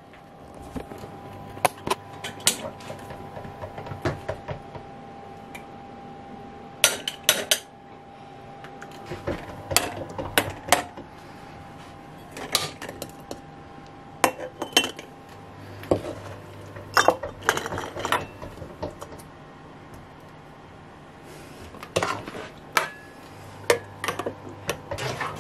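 A metal spoon and a stainless steel jam funnel clinking and scraping as stewed apple is spooned into glass canning jars: scattered irregular clinks, with a few louder clusters.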